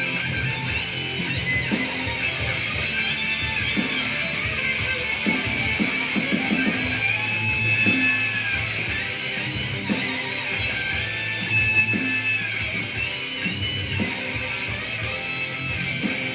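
Rock music with electric guitar, including held and bending lead notes over a steady beat.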